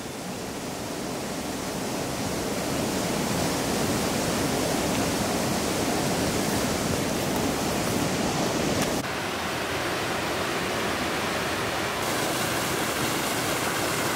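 Small stream cascading down a rocky gully: a steady rush of running water that swells over the first few seconds and then holds.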